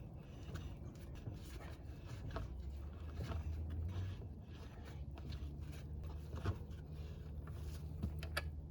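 Scattered clicks, knocks and scrapes of hand tools and parts being handled while a car wheel is refitted, over a low steady hum that grows stronger about halfway through.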